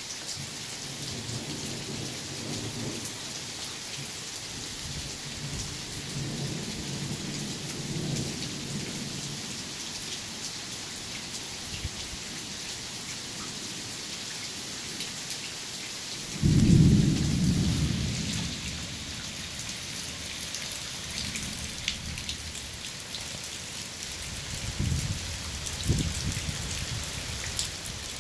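Steady rain hissing throughout, with low rumbles of thunder. A louder thunderclap breaks in about halfway through and rolls off over a couple of seconds.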